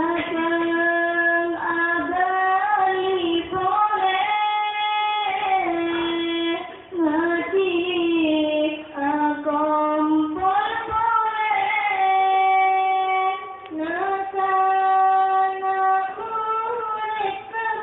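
A sholawat, an Islamic devotional song, sung by a young female voice in several phrases with long held, ornamented notes and short breaths between them.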